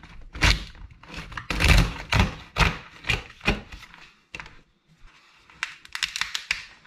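A cooked lobster's shell being cracked and prised apart by hand on a wooden chopping board: a run of sharp cracks and crunches with a few dull thuds, a short lull about four seconds in, then another cluster of cracks.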